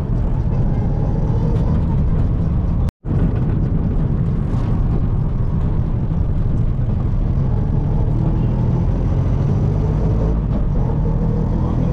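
Auto-rickshaw engine running steadily as it drives along, heard from inside the open cab. The sound cuts out completely for a split second about three seconds in, then carries on as before.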